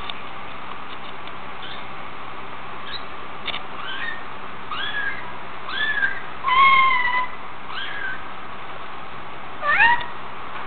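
A three-week-old kitten mewing: about six short, high mews, each rising then falling in pitch, the longest and loudest about halfway through.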